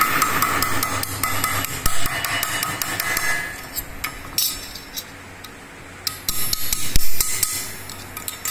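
A nylon-faced mallet beating a thin sheet-metal strip on a steel bench to fold over its edge: a quick run of blows, several a second, with the metal ringing under them, then a pause and a second cluster of blows near the end.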